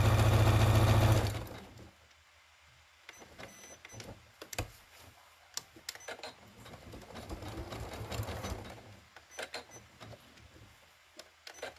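Electric sewing machine stitching fabric strips with a steady, fast run that stops abruptly about a second in. Scattered light clicks and taps follow while the fabric is handled under the presser foot.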